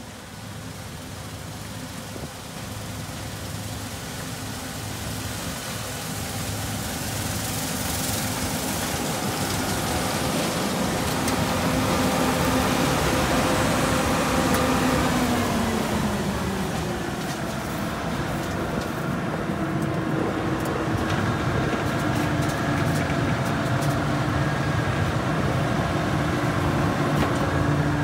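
John Deere S790 combine running while harvesting soybeans: the engine and threshing machinery grow steadily louder as it comes close, drop a little in pitch about halfway through, then run on steadily. A few light knocks near the end.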